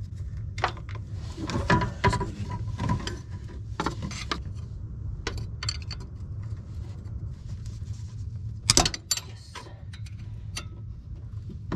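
Hand tools and metal parts clicking and knocking irregularly as a car's power steering pump is worked loose, over a steady low hum. The loudest knocks come about two seconds in and again near nine seconds.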